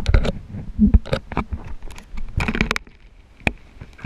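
Muffled underwater knocks, clicks and rumbles picked up by a submerged camera as a spearfisher moves through the water, with a quick cluster of knocks near the middle.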